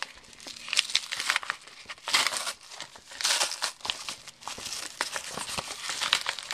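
Crinkling and tearing of a small mail package's wrapping as it is opened by hand, in irregular bursts.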